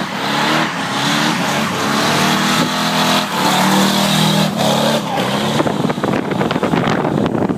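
Pickup truck's prerunner engine revving hard, its pitch rising and falling, as the truck comes out of a burnout on a welded differential and drives close past and away.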